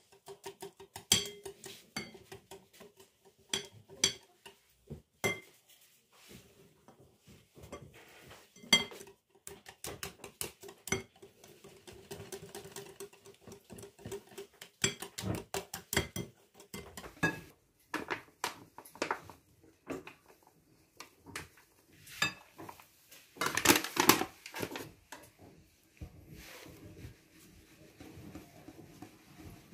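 Stainless steel balloon whisk clinking and scraping against a glass mixing bowl while beating melted butter into a batter, in irregular runs of sharp taps. A fast, dense flurry of louder clinks comes a few seconds before the end.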